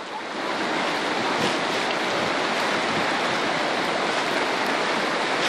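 Muddy floodwater of a swollen river rushing past the bank: a steady, unbroken rush of water.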